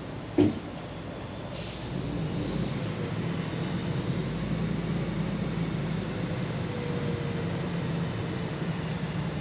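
Dump truck's engine running and picking up to drive the hydraulic hoist as the bed lifts to dump a load of gravel. There is a sharp knock about half a second in and a few short hisses of air just after it.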